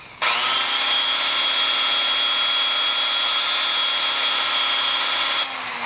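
Corded electric drill switched on, spinning up quickly to a steady high whine at full speed, then switched off and winding down near the end.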